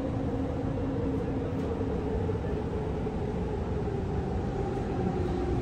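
Doha Metro train running through a tunnel, heard from inside the car: a steady rumble of the running gear with a faint motor whine that slowly falls in pitch as the train slows.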